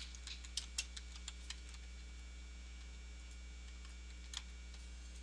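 Faint computer keyboard keystrokes as a job title is typed: a quick run of about seven clicks in the first second and a half, then a single click later, over a steady low hum.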